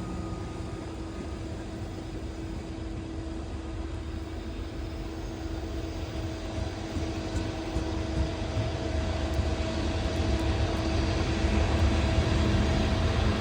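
Freight train's diesel locomotives approaching, their low rumble growing steadily louder, with a steady whine held over it.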